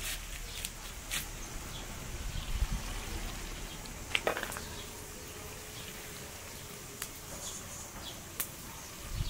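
A metal cooking pot is set down onto metal bars over a wood fire with a single clunk about four seconds in, among scattered crackles from the burning wood. An insect buzzes steadily through the second half.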